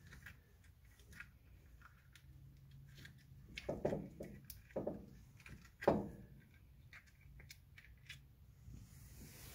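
Faint rubbing and handling sounds of a new rubber brake-caliper guide-pin bushing being squeezed and worked into its hole in the caliper bracket by hand, with three short, louder rubbing sounds around the middle.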